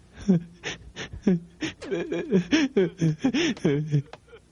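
A man sobbing in a rapid run of short, wavering, voiced sobs, about four a second, stopping about four seconds in: a put-on, tearless cry.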